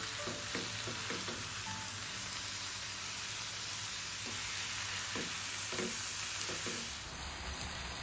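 Banana-blossom curry with prawns sizzling in a hot pan, a steady frying hiss. A silicone spatula stirs it in short scraping strokes, in two spells: one early and one around the middle.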